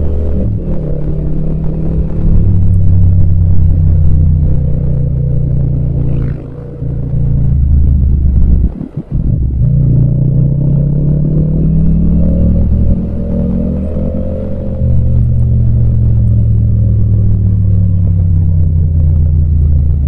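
Yamaha MT-07's 689 cc crossplane parallel-twin engine under way. Its pitch climbs as the bike accelerates, then drops back at gear changes, with a brief sharp drop in sound about nine seconds in.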